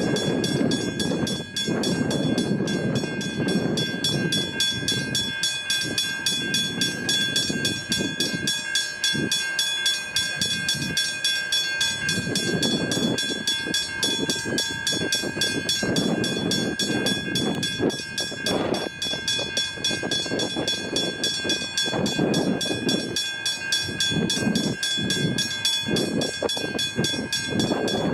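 Level crossing bell ringing continuously in a fast, even, high-pitched ring, over an uneven low rumble.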